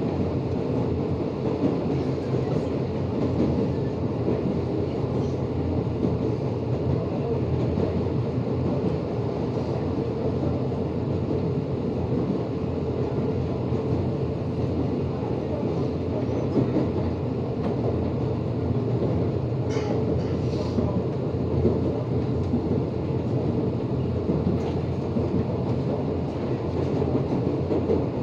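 Electric commuter train running, heard from inside the carriage: a steady rumble of wheels on rail, with a few faint clicks.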